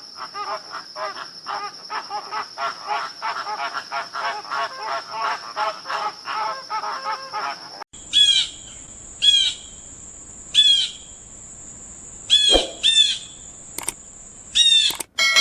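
Bird calls: first a fast run of short chattering notes, several a second, over a steady high-pitched tone; then, after a sudden change about eight seconds in, single sharp chirps sweeping down in pitch, a second or so apart, over another steady high tone.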